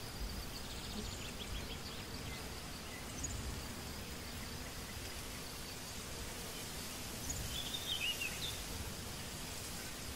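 Quiet outdoor countryside ambience: a steady soft hiss with a low rumble, insects chirping, and a short bird call about eight seconds in.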